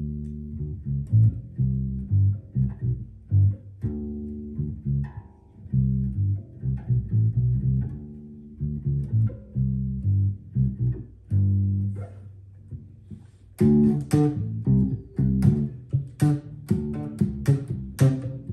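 Sterling SUB4 Stingray electric bass played through an Ampeg BA110 bass amp with the treble EQ turned fully down, a run of plucked notes with a dark, bass-heavy tone. About 13 seconds in the playing turns more percussive, with sharp clicky attacks on each note.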